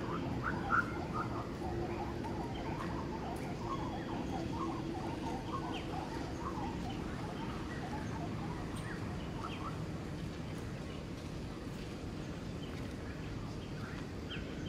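Many short, high chirping calls scattered and overlapping throughout, with a single sharp click about a second in.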